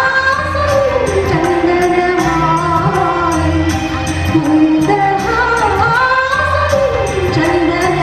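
A song with a gliding sung melody over a steady, regular percussion beat and bass, in a South Asian popular style.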